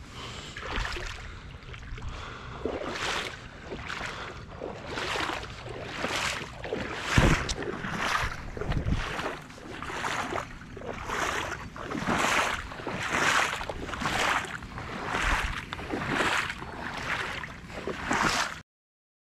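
Water swishing and splashing in a steady rhythm, about one stroke a second, as someone moves through shallow water. It stops suddenly near the end.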